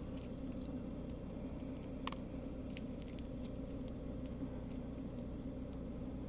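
Hcalory diesel air heater running steadily: a constant low hum from its fan and burner, with a few faint light clicks and one sharper click about two seconds in.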